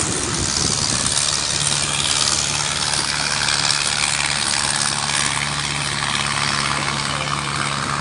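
An engine running steadily with a constant low hum, under a steady hiss.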